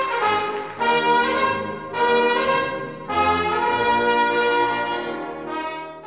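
Music with brass instruments playing a series of held chords, a new one about every second, growing quieter near the end.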